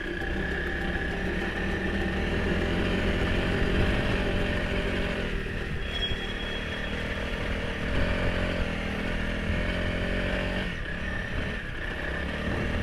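Motorcycle engine running on the move, its pitch shifting up and down a few times with the throttle.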